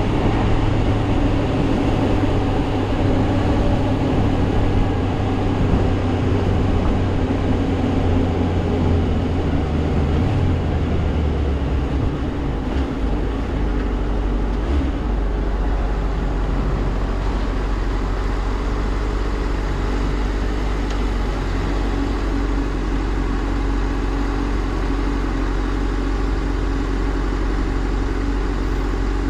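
Suzuki GSR400 inline-four engine running on the move. Its low note drops about ten to thirteen seconds in and then holds a lower, steady note as the bike eases off.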